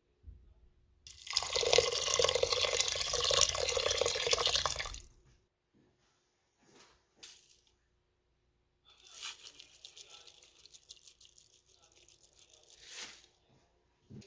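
Water pouring into a stainless steel pot of raw rice for about four seconds. After a pause comes a softer, dry, crackly rustle lasting several seconds as cumin seeds are sprinkled onto the water.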